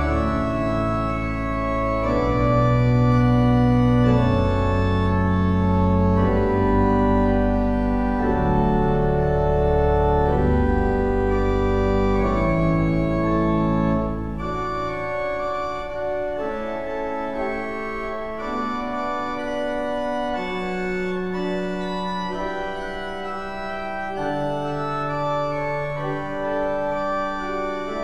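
Pipe organ playing slow, sustained chords. Deep bass notes sound under the chords for the first half. About halfway through the bass drops out, and the chords go on higher and a little softer.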